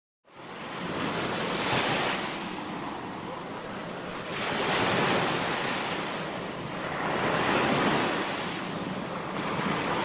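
Ocean surf: waves washing onto a beach, a rushing sound that fades in at the start and then swells and ebbs about every three seconds.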